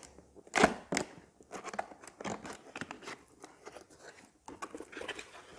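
Cardboard box being opened by hand: two sharp snaps about half a second and a second in, then quieter scraping and rustling as the flaps are lifted.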